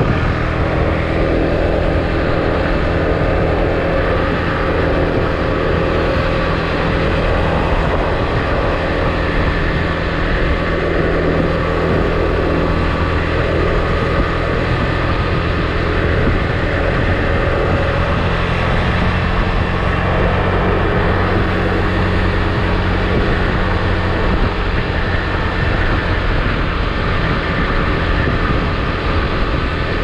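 Husqvarna Svartpilen 401's single-cylinder four-stroke engine through its stock exhaust, running at a steady cruise.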